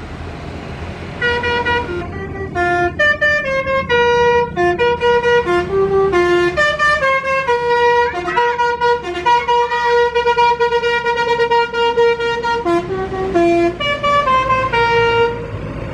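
A tour bus's telolet horn, a multi-tone musical air horn, playing a tune of held notes that step up and down several times a second over the bus's low engine rumble. It starts about a second in and stops near the end.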